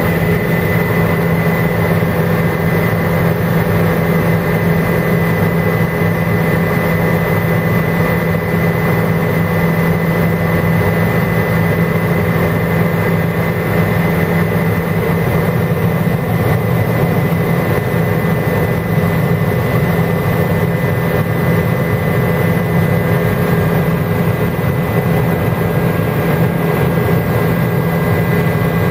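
Helicopter in flight heard from inside the cabin: a steady engine and rotor drone with a low hum and a thin high whine, unchanging throughout.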